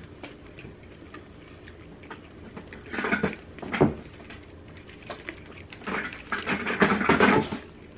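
Eating sounds at a table: chewing and handling food and paper wrappers. They come in two short spells of rustling and clicking a few seconds apart, with a quiet room between.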